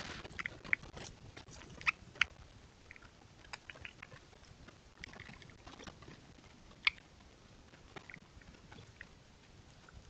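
Raccoons foraging among dry leaves and rocks: scattered rustling, scratching and small crackles, with a few sharp clicks standing out about one, two and seven seconds in.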